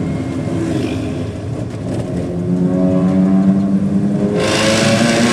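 Fiat Siena's engine heard from inside the cabin, pulling steadily with its pitch rising slowly as the car gathers speed. A loud hiss starts suddenly near the end and runs on over it.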